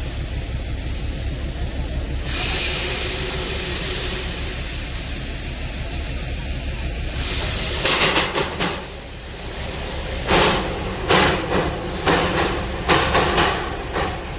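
Darjeeling Himalayan Railway narrow-gauge steam locomotive under way, with a steady hiss of steam. From about eight seconds in, a run of sharp exhaust chuffs comes at about two a second.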